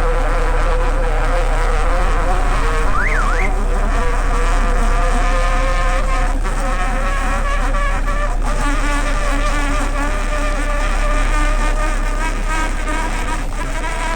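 A boat's engine running steadily, a droning hum with a buzzing whine over it.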